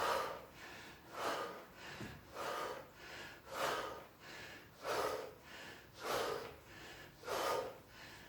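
A person breathing hard and rhythmically from exertion mid-exercise, a sharp forceful breath about every second and a quarter.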